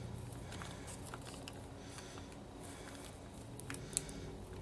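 Small plastic bag being squeezed and worked between the fingers: faint crinkling and soft clicks, the sharpest about four seconds in, as the last of a liquid is pressed out through its cut corner.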